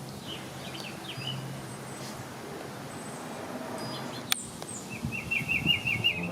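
Birds calling outdoors over a steady background noise. A few short chirps come early, and a quick trill of about eight repeated notes comes near the end. A single sharp click sounds about four seconds in.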